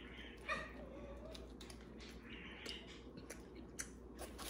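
A dog whimpering faintly, one short wavering whine about half a second in, over soft chewing clicks.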